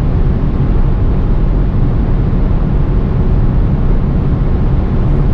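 Steady in-cabin drone of a BMW 330e xDrive Touring held at its top speed of about 220 km/h: wind and road noise over the 2.0-litre four-cylinder turbo petrol engine pulling in sixth gear.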